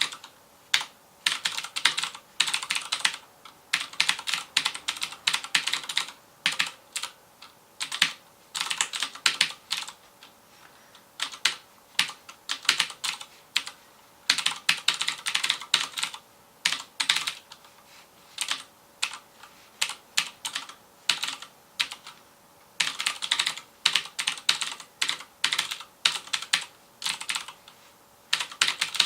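Fast typing on a FILCO Majestouch Convertible 2 mechanical keyboard with Cherry MX Blue clicky switches. The keystrokes come in quick runs, separated by short pauses.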